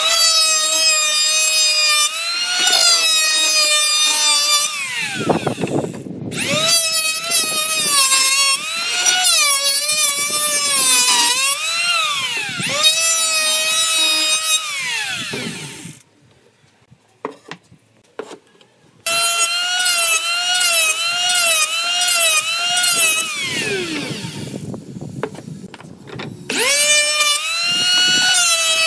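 Handheld electric planer running with a high motor whine that sags in pitch as the blades bite into the wood and recovers between passes. It winds down and starts again several times, and a little past the middle it is off for about three seconds, with only a few light knocks.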